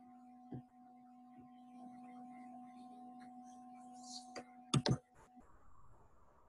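Computer mouse clicked sharply twice in quick succession, with a softer third click just after, over a faint steady electrical hum that cuts out a moment later, leaving a faint hiss.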